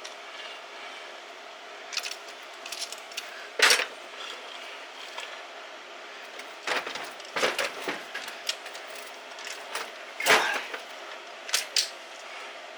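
Scattered metallic clinks and knocks of small engine parts and tools being handled on a disassembled engine, with louder knocks about four seconds in and about ten seconds in.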